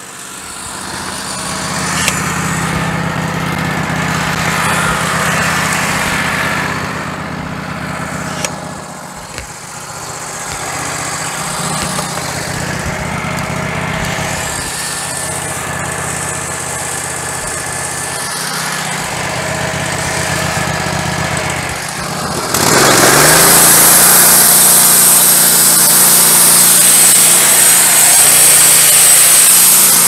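Wood-Mizer LT15GO sawmill's gas engine idling, its level swelling and falling. About three-quarters through it revs up sharply to full throttle and the band blade spins up, running loud and steady with a high whine, ready to cut.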